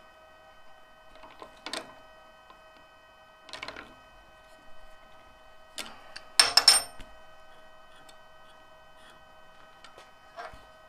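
Metal clinks and knocks from resetting the offset on an Escoulen eccentric chuck on a stopped wood lathe: a few separate knocks, with the loudest cluster about six and a half seconds in. A faint steady hum runs underneath.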